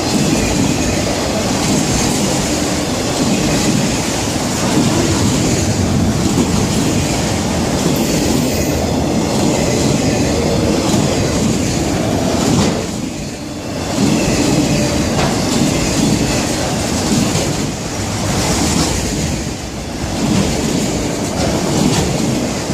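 Freight cars of a passing CSX manifest train rolling by close at hand: a steady, loud rumble of steel wheels on the rails, dipping briefly about halfway through.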